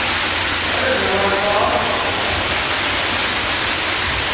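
Water pouring and rushing in a storm drain, a loud steady hiss; a faint voice is heard briefly about a second in.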